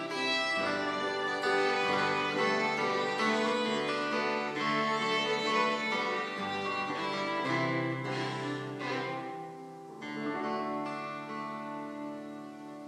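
Two fiddles and a steel-string acoustic guitar playing an instrumental passage of a folk tune. About nine to ten seconds in, the playing breaks off, and a final held chord rings out and slowly fades.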